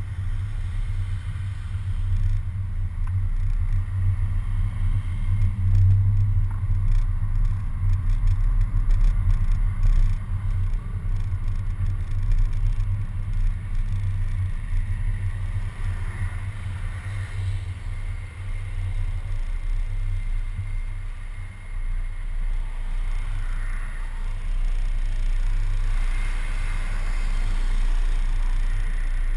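Low, steady rumble of a city bus driving in traffic, picked up through a camera mounted on the outside front of the bus.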